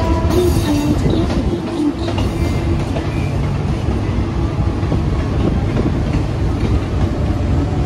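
Mumbai suburban electric local trains running side by side, heard from on board: a loud, steady rumble with clatter of wheels on the rails and rushing air.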